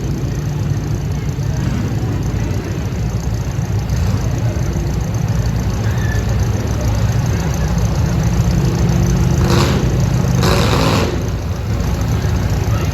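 Big demolition derby cars' engines running at low revs on the track, a steady loud rumble while the heat is halted. A brief, harsh burst of noise comes about nine and a half seconds in, and a longer one at about ten and a half seconds.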